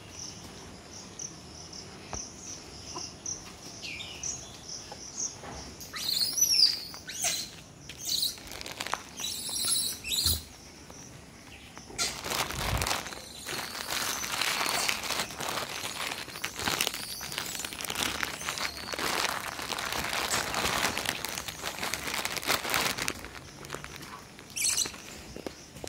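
Outdoor yard ambience: a steady high insect trill, then a few short sweeping bird chirps about six to ten seconds in. After that comes about ten seconds of scuffing, rustling noise of footsteps on a brick path and the phone being handled.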